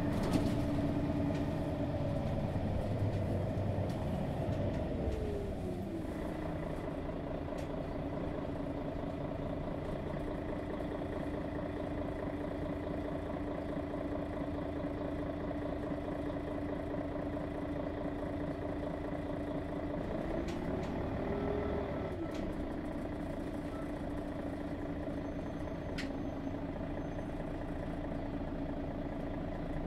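Mercedes-Benz Citaro G bus's OM 457 hLA straight-six diesel running, its revs falling over the first five seconds or so and then holding steady. A little past two-thirds of the way the revs briefly rise and drop back.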